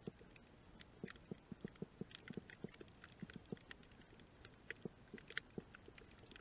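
Faint, irregular clicks and soft knocks heard underwater on a shallow coral reef, several each second.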